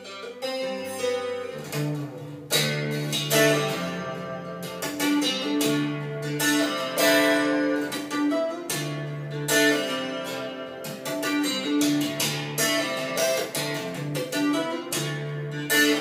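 Plucked-string instrumental music played through a pair of Ruark Broadsword bookshelf speakers, picked up in the room by a phone's microphone.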